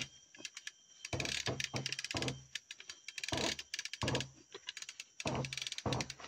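Dry leaf litter and twigs crackling under footsteps, a burst of fine crunching about once a second.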